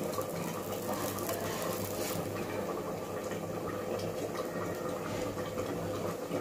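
Steady sizzling hiss of food cooking on a lit gas stove, with a few light clicks.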